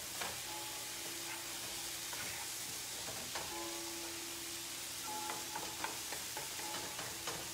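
Ground mushroom and cauliflower mixture sizzling in a frying pan on the stove, stirred with a wooden spoon that scrapes and taps against the pan now and then.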